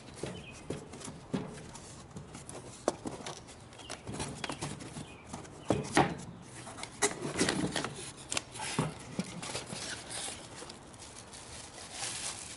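A cardboard shipping box being opened by hand: flaps pulled open and scraping, then packing paper and a plastic bag crinkling, with irregular taps and rustles throughout.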